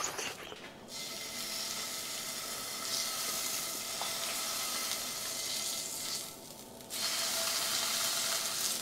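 Steak searing in hot olive oil in a cast iron skillet, held on its edge to brown the side. The sizzle starts about a second in as the meat meets the pan, dies away briefly around six seconds, then picks up again.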